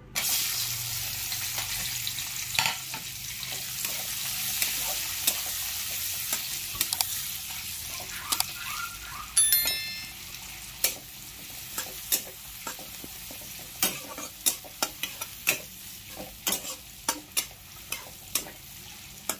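Sliced onions dropped into hot oil in an iron kadai, sizzling loudly at once, the sizzle slowly settling as they fry. A metal spatula stirs and scrapes them, clicking against the pan over and over, and a short high chime sounds about halfway through.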